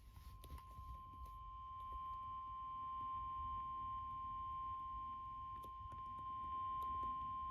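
NOAA Weather Radio 1050 Hz warning alarm tone: a single steady, unbroken high tone over faint radio static. It signals that a warning broadcast is about to follow.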